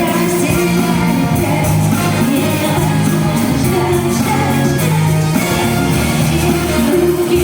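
Pop-rock song playing with a steady beat, bass and guitar, and a singing voice.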